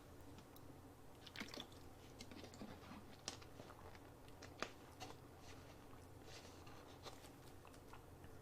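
Near silence: room tone with a low hum and faint scattered small clicks and crunches, a few louder ones about a second and a half, three and four and a half seconds in.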